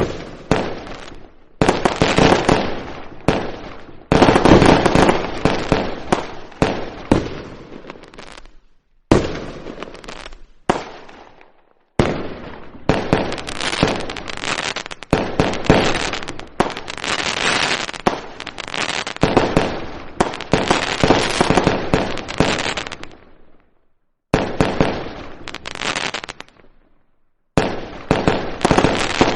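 Firecrackers bursting in rapid, dense strings of sharp cracks and bangs. The sound comes in several stretches that start and cut off abruptly, with short silent gaps between them.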